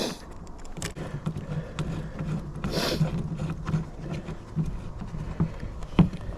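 Small clicks and scrapes of screws, washers and hand tools as light-bar mounting brackets are fastened loosely onto a snowmobile. There is a brief scraping rush about three seconds in and a sharp click near the end.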